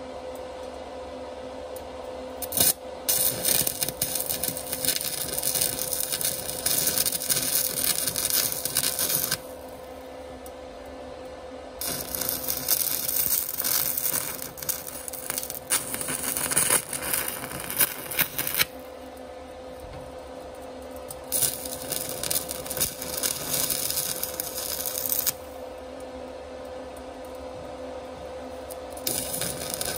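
Sefaspe 120 A inverter stick welder burning a 6013 rod, its arc crackling in four runs of several seconds each, the last starting near the end. A steady hum fills the pauses between runs.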